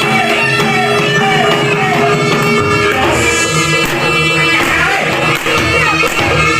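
Loud Javanese jaranan music: a sliding, pitched melody over a steady drone, with regular drum strokes.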